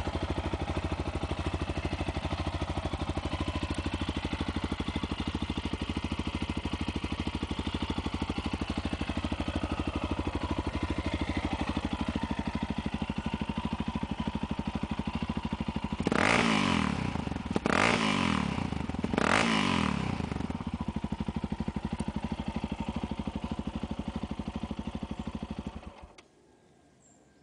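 Yamaha XT660 Ténéré's single-cylinder four-stroke engine idling steadily through a LeoVince aftermarket exhaust with the dB killer fitted. It is revved three times in quick succession about sixteen seconds in, settles back to idle, and is switched off near the end.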